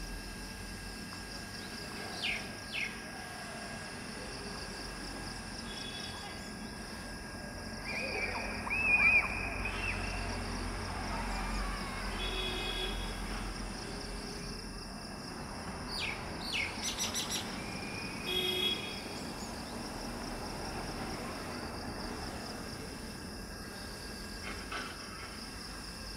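Birds calling in short scattered chirps over steady outdoor background noise, with one louder, wavering call about eight to ten seconds in.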